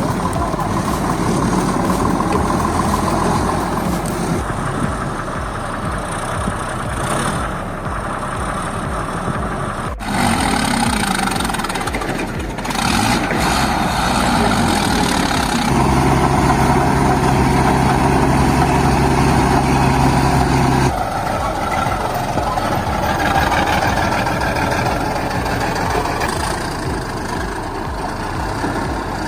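Heavy vehicle engines running and revving over several clips cut together. The sound changes abruptly at each cut. About halfway through, an engine runs with a steady drone for about five seconds.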